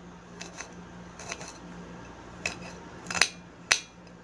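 Kitchen knife slicing garlic cloves on a ceramic plate: the blade strikes the plate in irregular sharp clicks, about seven of them, the loudest a little after three seconds in. A faint steady hum runs underneath.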